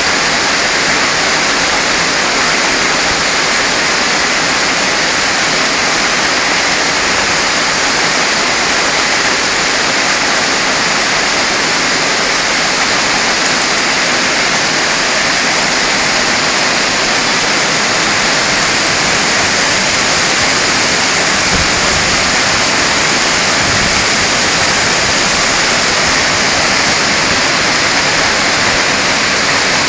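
Hailstorm: hail and heavy rain pouring down and pelting surfaces in a steady, dense hiss.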